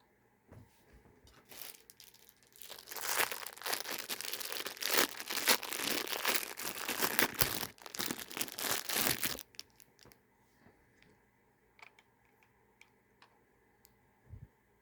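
Plastic packaging being crumpled and pulled open: a dense, loud crackle from about three seconds in that stops abruptly about nine seconds in. Light clicks and taps come before and after it.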